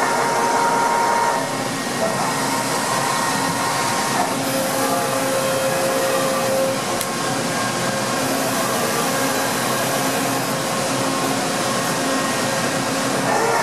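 Mori Seiki SL8-C CNC turning center running with a steady mechanical hum, its turret slide traversing back and forth. Whining drive tones start and stop several times and shift in pitch as the slide moves.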